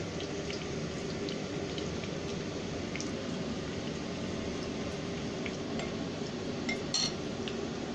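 Sweet potato wedges frying in hot oil in a nonstick pan: a steady sizzle with scattered small pops and crackles. A short clink about seven seconds in.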